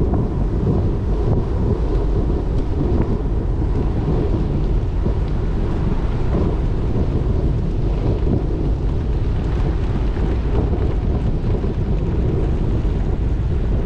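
Wind buffeting the microphone of a camera moving at cycling speed makes a steady low rumble, mixed with the hiss of tyres rolling on coarse chip-seal pavement.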